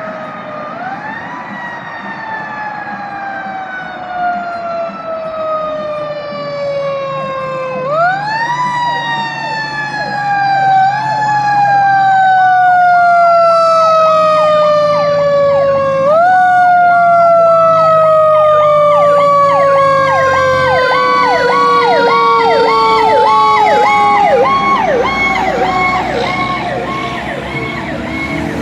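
Federal Q2B mechanical siren wound up three times, each time climbing quickly in pitch and then coasting slowly down. About a third of the way in, an electronic siren joins, pulsing rapidly up and down, over a low engine drone.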